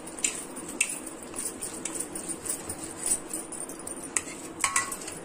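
A hot ragi mudda (finger-millet dough ball) being shaped and turned by wet hands on a steel plate: soft pats with irregular light clinks and taps of the plate, a few sharper ones near the end.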